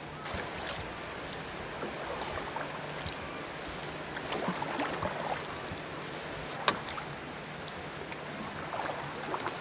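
Steady outdoor hiss of water and wind, with scattered light knocks and clicks and one sharper click about two-thirds of the way in.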